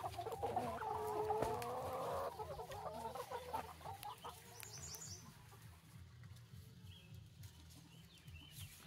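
Flock of Novogen laying hens clucking, many birds at once for the first two seconds or so, then thinning to scattered clucks.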